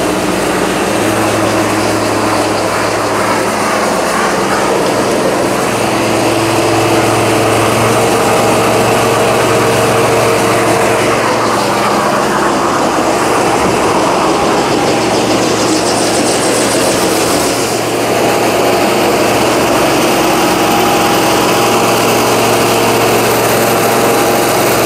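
Kubota turbo-diesel engine and high-pressure pump of a truck-mounted drain jetter running steadily under load, with the hiss of water jetting from a Warthog nozzle on a half-inch hose through a pipe.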